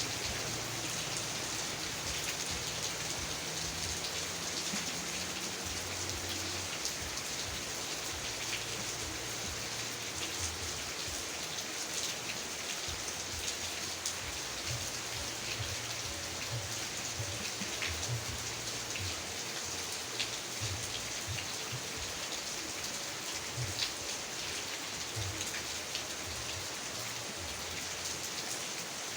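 Steady heavy rain: a continuous hiss of falling rain with scattered sharper drop taps.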